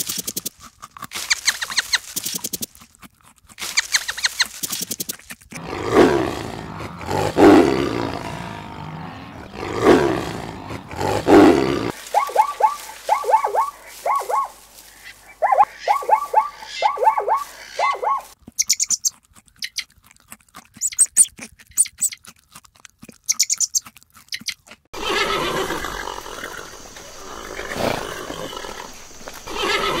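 A string of different animal calls that changes every few seconds: rapid clicky pulses, then several long calls, then quick runs of short chirps, then high-pitched chirps.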